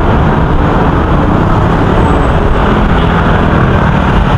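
Steady, loud noise of busy road traffic.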